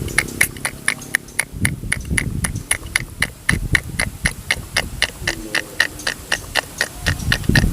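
Rapid, even ticking, about seven ticks a second, with low rumbling coming and going underneath.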